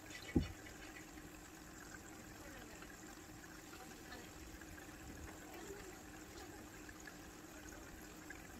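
Faint, steady trickle of water from a running aquarium filter, with a low steady hum and a single dull thump about half a second in.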